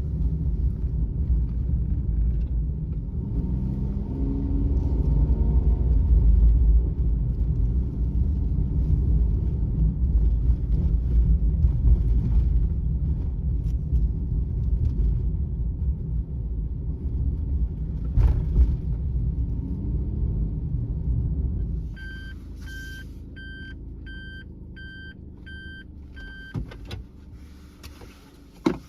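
Cabin noise of a Suzuki Every kei van on the move: a steady engine and road rumble that falls away about three quarters of the way through as the van slows to a stop. A run of about seven evenly spaced electronic beeps follows, then a sharp click near the end.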